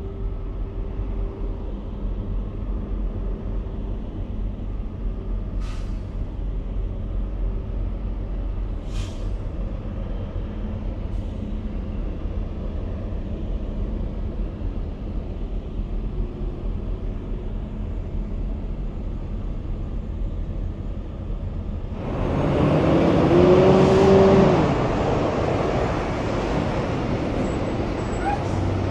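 Semi-truck traffic: a steady low rumble of big-rig engines and road noise. About twenty-two seconds in, a sudden loud rush with a rising then falling engine note lasts about three seconds.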